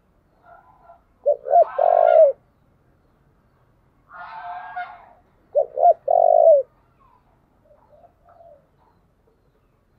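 Spotted dove cooing: two phrases about four seconds apart, each a quick pair of short coos followed by a longer coo. A softer, rougher sound comes just before the second phrase.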